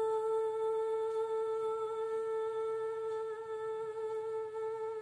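A woman humming one long, steady held note with closed lips, the close of a Malayalam devotional song.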